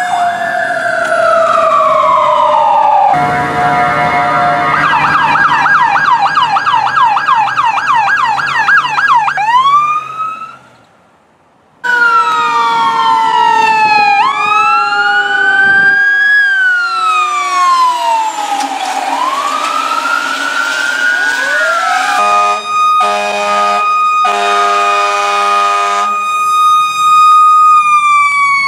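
Fire truck sirens passing in a series of clips: a wail winding down, a steady horn-like blast, a fast yelp that winds down before a brief near-silent gap about ten seconds in, then several sirens wailing up and down over each other, a run of on-off horn blasts, and a high tone falling near the end.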